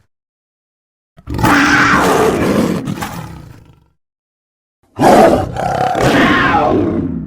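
Two long calls from a big cat billed as a black panther, each about two and a half seconds and fading out, the first starting about a second in and the second about five seconds in. They are separated by dead silence, as edited-together clips.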